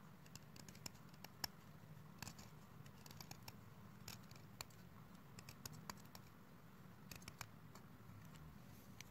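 Chalk stick scraped against the toothed edge of a stainless steel blade, shaving off flakes: faint, irregular sharp scratchy clicks, some in quick clusters.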